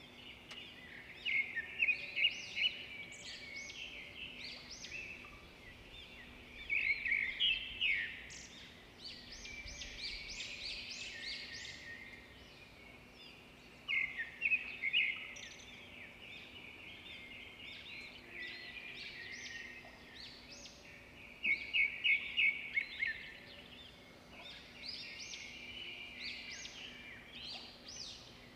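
Small birds chirping and twittering, with loud bursts of rapid calls every several seconds between quieter chatter.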